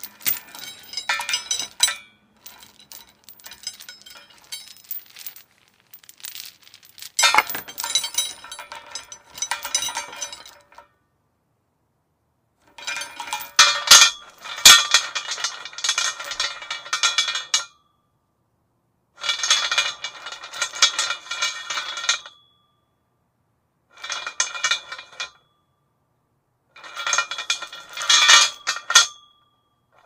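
Metal chain jangling and clinking, links rattling against each other as it is handled, in about seven bursts of a few seconds each with silent gaps between them.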